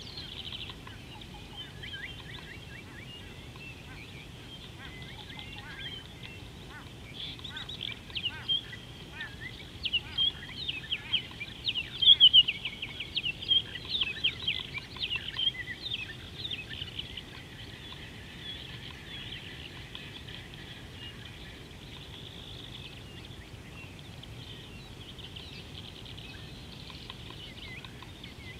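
Birds calling and chattering in a chorus of rapid, high chirps, growing louder and busier through the middle stretch before settling back. A steady low background hum lies under it.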